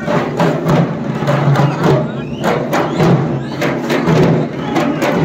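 Drums played in a quick, steady beat, about three strokes a second, with crowd voices mixed in.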